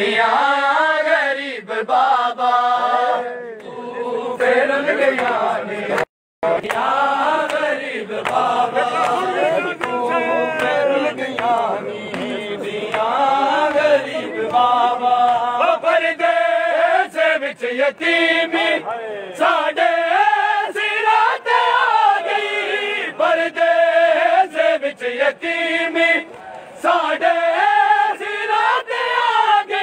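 Many men's voices chanting a Punjabi noha (Shia lament) together, with frequent sharp slaps of matam, hands beating chests. The sound cuts out completely for a moment about six seconds in.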